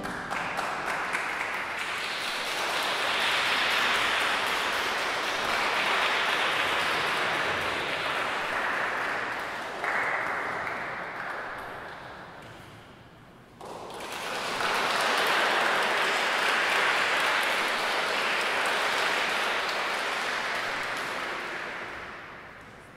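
Audience applauding in a reverberant church once the organ piece has ended. The clapping dies down, then surges back abruptly about fourteen seconds in, and fades again near the end.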